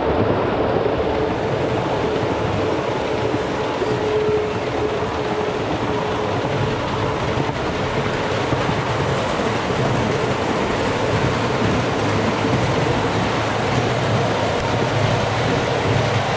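Ride-on miniature train running along its narrow-gauge track, a steady rumble of wheels on rail with a faint steady whine.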